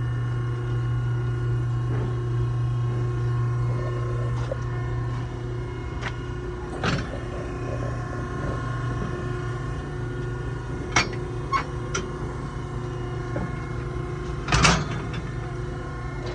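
Steel bars and gates of a bucking-bull chute clanking and rattling a few times as the penned bull shifts against them, the loudest knock about fourteen seconds in, over a steady low hum.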